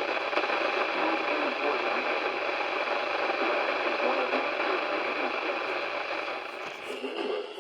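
Steady hiss of radio static on a receiver whose signal has faded, with no clear speech coming through. The hiss thins and drops in level near the end.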